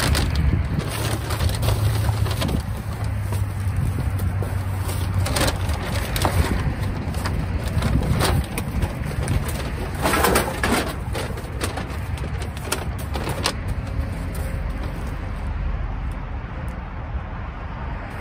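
Rummaging through a dumpster: scattered knocks, clatters and rustles of items being moved, over a low steady hum.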